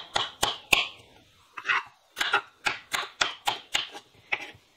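Chef's knife chopping bell peppers on a wooden cutting board: quick, even knocks of the blade on the board, about four a second, with a short pause about a second in.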